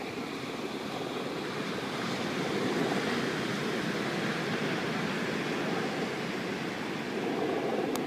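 Ocean surf breaking and washing up a sandy beach: a steady rush that swells a little about three seconds in and again near the end.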